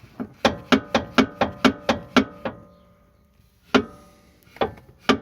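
Front anti-roll bar of a VW Polo 1.4 16V knocking in its worn-out rubber bushings: a quick run of about nine metallic knocks with a short ringing tone, a pause, then three more near the end. The broken bushings let the bar clunk, the cause of the rattle under the car.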